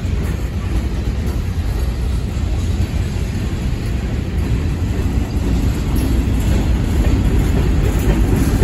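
Freight train cars (tank cars, a gondola and covered hoppers) rolling past on the near track: a steady low rumble of steel wheels on rail, growing a little louder near the end.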